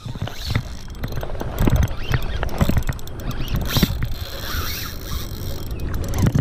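Shimano Stella 14000 spinning reel being cranked under load while the rod is bent into a fish: irregular gear clicks and creaks, over a low rumble of wind and handling noise on the camera.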